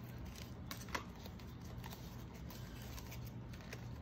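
Faint clicks and taps of a painting stick and paint supplies being handled while paint is dabbed onto a canvas, one click about a second in a little louder than the rest, over a steady low hum.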